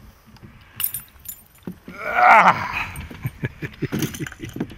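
A landed largemouth bass is lifted from the water beside the boat, with a run of quick clicks, knocks and metallic rattling from the fish and the spinnerbait as it swings aboard. A brief vocal exclamation comes about two seconds in.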